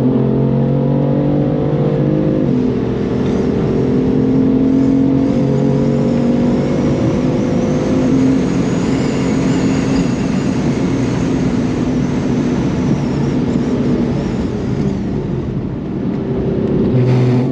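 Tuned 600+ hp BMW M4's twin-turbo straight-six pulling hard under acceleration, its note dropping at quick gear shifts near the start and again about two and a half seconds in. Through the middle a high turbo whistle rises and falls above the engine.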